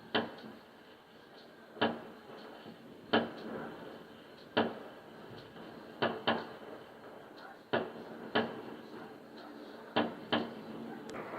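Fireworks going off in the distance: about ten sharp bangs, spaced irregularly roughly a second or so apart, some in quick pairs.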